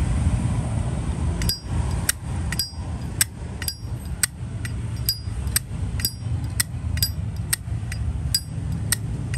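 Zippo lighter's hinged lid flicked open and snapped shut again and again: sharp metallic clicks with a bright ring, about two a second, starting about a second and a half in, over a steady low hum.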